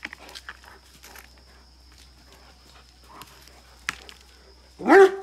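Great Dane barking once near the end, after a few seconds of soft paw scuffs on dirt and a single sharp click.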